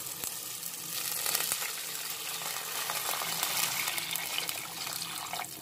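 Chicken stock poured in a steady stream into a hot pan of frying onion and tomato, splashing and sizzling. It eases off near the end.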